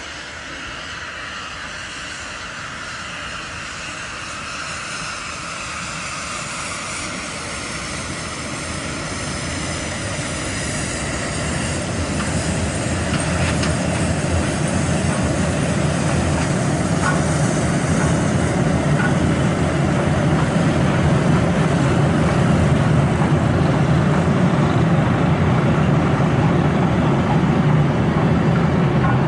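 A 1941 Hv3 class wood-fired steam locomotive and its passenger train crossing a steel truss railway bridge. A high hiss with slowly sliding tones comes first, then a low rumble of the train on the bridge swells and grows steadily louder.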